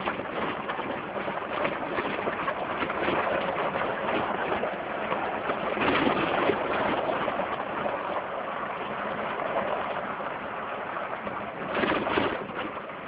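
Jeep Wrangler driving off-road over a rough track: steady engine and road noise with rattles, swelling with louder jolts about six seconds in and again near the end.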